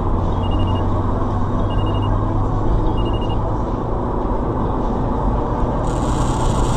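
Steady engine and road noise of a car driving in traffic, picked up inside the cabin by a dashcam: a low hum under an even rumble. Short, faint high beeps sound a few times about a second and a quarter apart in the first few seconds, and a hiss comes in near the end.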